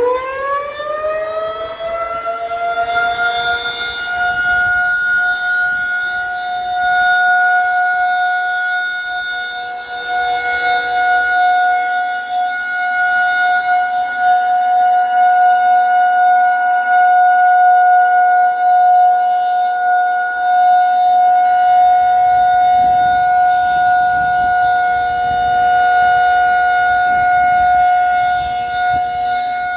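Federal Signal 2001-SRN electromechanical outdoor warning siren winding up, its pitch rising steeply over the first couple of seconds, then holding one steady tone at full speed as a steady alert signal.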